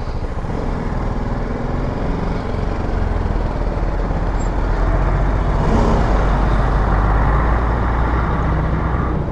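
Heavy lorry's diesel engine running at close range, mixed with a BMW G310 GS's single-cylinder engine at low speed: a steady low rumble that grows louder in the middle as the motorcycle passes the lorry's cab.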